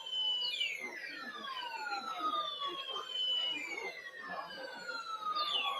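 Weather radio broadcast overlaid by repeated whistling tones that each glide slowly downward in pitch and overlap one another, with a new one starting every two to three seconds, over faint muffled speech.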